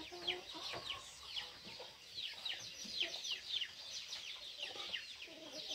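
Chicks peeping continuously: many short, high cheeps that each slide down in pitch, several a second, with some lower clucking from hens underneath.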